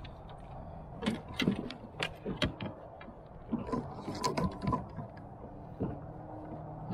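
Irregular clicks and knocks of fishing gear being handled aboard a kayak, a sharp tap every fraction of a second for the first few seconds, then sparser.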